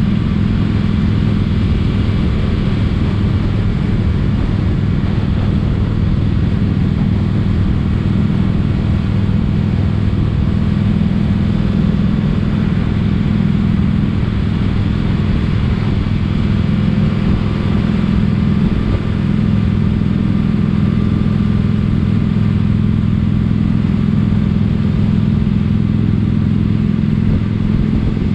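Motorcycle engine running at a steady, even speed throughout, heard while riding.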